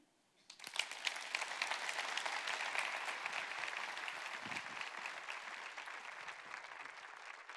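Audience applauding. It starts about half a second in, swells quickly and then slowly thins out.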